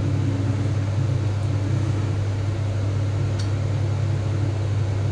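A steady low mechanical hum at an even level, with one faint click about three and a half seconds in.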